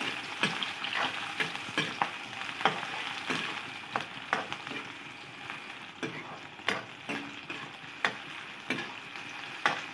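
Sliced onions sizzling in hot oil in a steel wok, stirred with a metal ladle that scrapes and clinks against the pan at an irregular rate of about one or two strokes a second.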